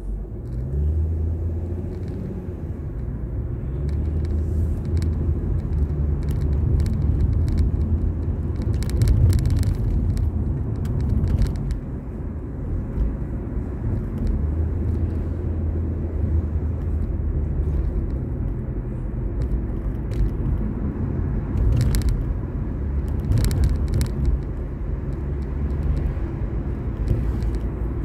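Car engine and tyre noise heard from inside the cabin as the car pulls away and drives along a street. The engine hum rises about a second in, then stays low and steady, with a few brief clicks or rattles.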